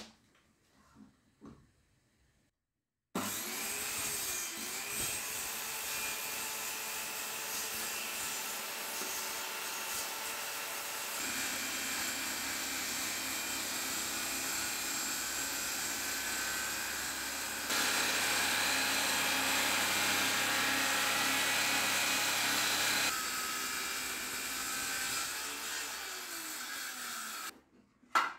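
Corded circular saw with a new sharp blade cutting lengthwise through a particleboard kitchen countertop. It starts suddenly about three seconds in, runs steadily, is louder for a stretch in the middle, and stops suddenly near the end.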